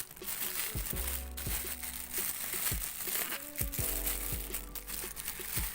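Background music with a steady kick-drum beat and bass, over the crinkling of plastic packaging being handled as a gimbal part is unwrapped.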